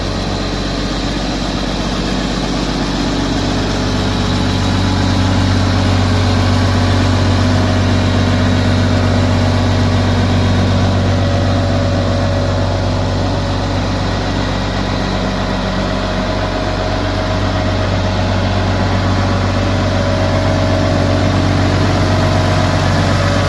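Ford Versatile 846 four-wheel-drive tractor's diesel engine idling steadily, a little louder from about four seconds in.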